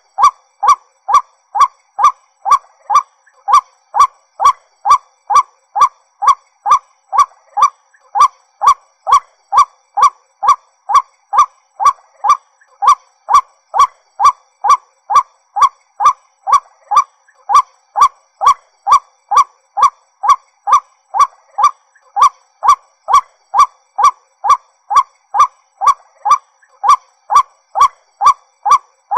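White-breasted waterhen calling: a single short note repeated about twice a second in a long, even series.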